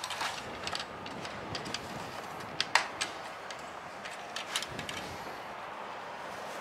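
Light clicks and taps of the dipstick being drawn from and pushed back into the oil fill tube on the John Deere Z335E mower's engine, the sharpest click a little under three seconds in. A steady hiss lies underneath.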